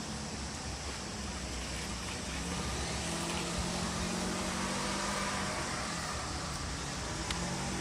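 Car engine running steadily with a low hum that swells a little in the middle.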